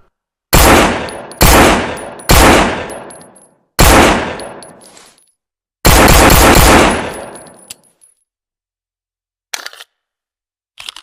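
Colt M1911 .45 ACP pistol firing five shots at uneven spacing, each with a ringing tail; the fifth stays loud for about a second. A few short mechanical clicks follow near the end.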